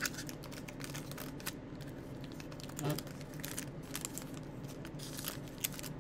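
Foil baseball-card pack wrapper crinkling and tearing as it is pulled open by hand, a scattered run of small crisp crackles, thickest about a second and a half in and again near the end.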